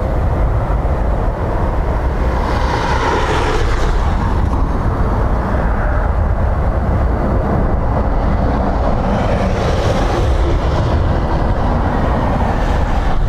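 Strong storm wind buffeting the microphone, a steady heavy rumble that swells in two gusts.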